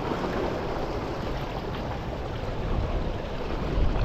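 Sea washing against shore rocks with wind buffeting the microphone, a steady rushing noise; the wind rumble grows stronger near the end.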